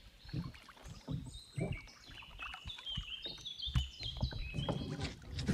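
A songbird singing a run of high, clear whistled notes that jump from pitch to pitch. Under it are scattered low knocks and water noise from a canoe being paddled.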